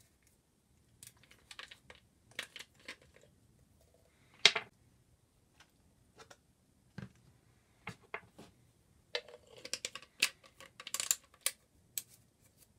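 A plastic bottle and a plastic bowl being handled on a wooden workbench: scattered clicks, knocks and rustles, with one sharp knock about four and a half seconds in and a busier run of clicks near the end.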